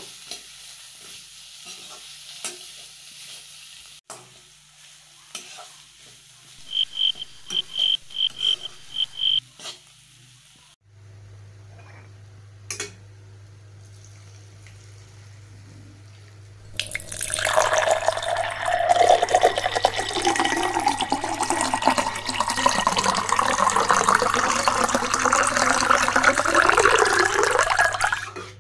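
A metal spatula stirs and scrapes onions and spices frying in a pan, with scattered clicks and, about seven seconds in, a quick run of about seven sharp ringing taps. After a quieter stretch with a steady hum, water poured into the hot pan sets off a loud, continuous hiss and bubbling that lasts until just before the end.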